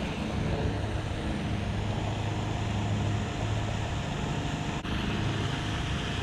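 Wind buffeting the microphone: a steady, even rumble with hiss above it, broken by a single sharp click about five seconds in.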